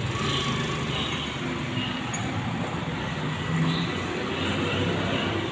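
Street traffic noise: a steady rumble of passing road vehicles.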